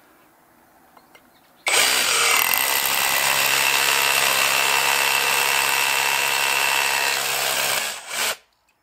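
Cordless brushless SDS-plus rotary hammer, running on an 18V Makita-type battery, hammer-drilling a hole: it starts abruptly about two seconds in, runs steadily and loudly for about six seconds, then stops, with a brief second burst just after.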